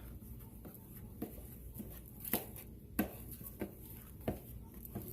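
Spoon knocking and scraping against a bowl while thickening slime is stirred, a short knock roughly every half-second.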